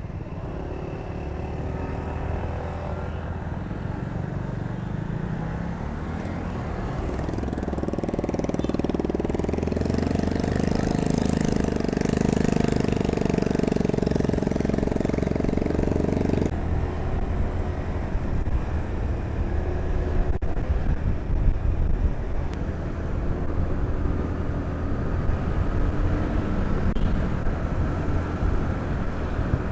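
Motorcycle engine running with road and traffic noise while riding. A louder rush builds from about seven seconds in and cuts off suddenly about halfway through.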